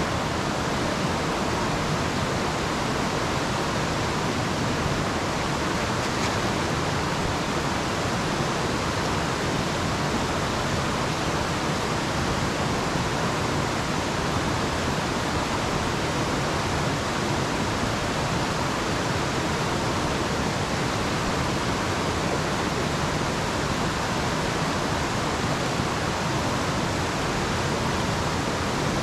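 Rushing water of a mountain stream, a steady, even hiss with no let-up.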